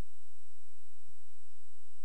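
Steady faint recording hiss with a thin high-pitched whine, the self-noise of the recording gear. A soft low bump comes about a second in and again at the very end.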